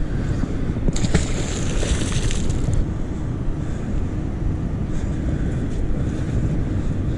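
Wind buffeting the microphone, a steady low rumble. A brief hissing rush starts about a second in.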